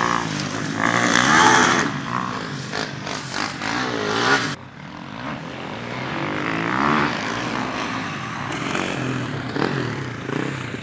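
2008 Ford F-350's 6.4L Powerstroke twin-turbo V8 diesel running, its engine pitch rising and falling. The sound breaks off abruptly about four and a half seconds in and carries on a little quieter.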